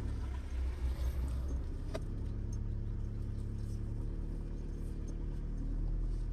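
A light van's engine running steadily, a low even hum heard from inside the cab, with a faint click about two seconds in.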